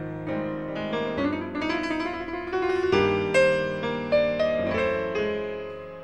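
Background piano music: a melody of struck notes over held chords.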